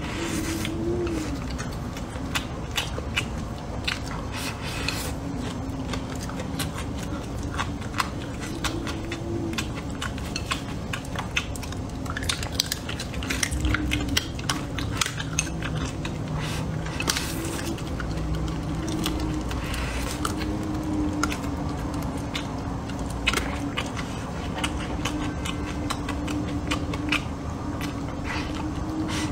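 Close-miked eating: wooden chopsticks clicking against a ceramic rice bowl again and again while rice and braised pork are chewed, over a low wavering tone underneath.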